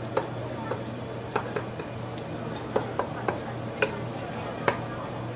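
Metal cooking utensil clinking against a wok while stir-frying: sharp, irregular strikes over a steady low hum.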